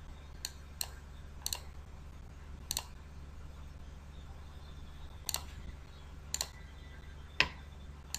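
Computer mouse button clicks, about eight spaced irregularly, several coming as quick pairs, with the loudest near the end, over a steady low hum.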